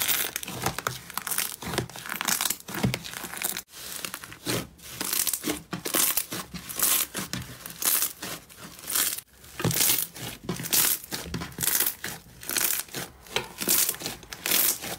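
Hands squeezing, kneading and stretching thick slime, giving a rapid, irregular run of sticky crackles and squelches, with a short break about four seconds in.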